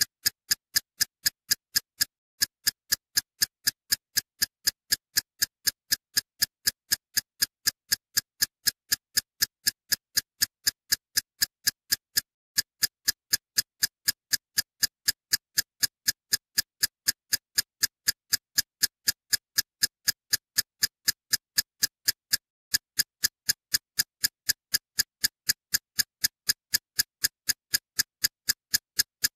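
Steady ticking: sharp, evenly spaced clicks at about three a second, with silence between them.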